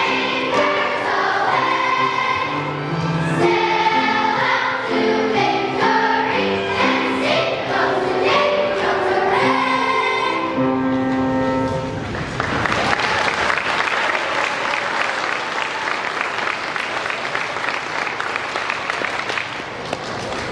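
Elementary school children's choir singing with accompaniment, ending on a held note about twelve seconds in, followed by audience applause.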